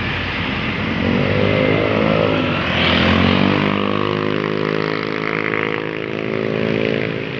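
A tour bus's engine passing close: it swells to its loudest about three seconds in with a rush of road noise as the pitch bends down, then its drone holds steady before easing near the end.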